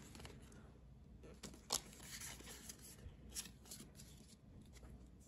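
Faint handling of trading cards and a foil booster-pack wrapper: soft rustling and a few light clicks, one sharper click a little under two seconds in.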